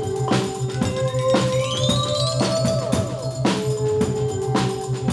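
Live percussion ensemble of drum kits and snare drums, hitting together about once a second, over sustained held tones with pitches that slide up and down.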